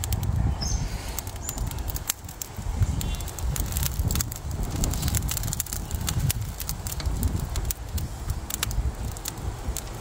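Wind buffeting the microphone in an irregular low rumble, with many scattered sharp clicks and crackles from the charcoal barbecue fire.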